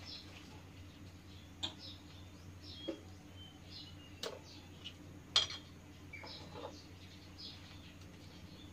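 A metal spoon clinking and scraping against a stainless-steel pot while curry pork paste is scooped into banana-leaf cups: a few sharp clicks, the loudest about five seconds in, over a steady low hum and faint high chirps.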